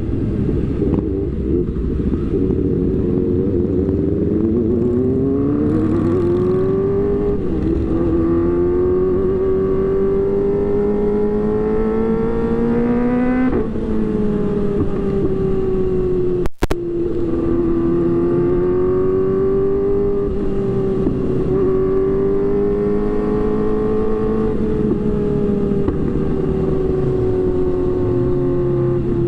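Motorcycle engine under way: its pitch rises as it accelerates about four seconds in, holds at a steady cruise, drops sharply about halfway through as with a gear change, then cruises on with small rises and falls. A steady rush of wind and road noise runs underneath, and the sound cuts out for an instant just past halfway.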